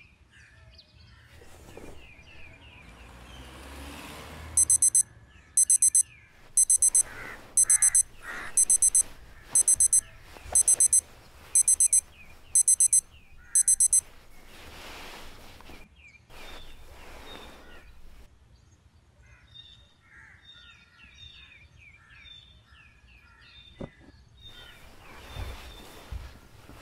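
Electronic alarm clock beeping loudly in quick high-pitched bursts, about ten bursts a second apart. It starts about five seconds in and stops abruptly about fourteen seconds in. Birds chirp faintly throughout.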